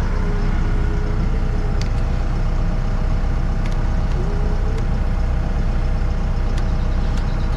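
Backhoe loader's diesel engine idling steadily, with a few faint clicks.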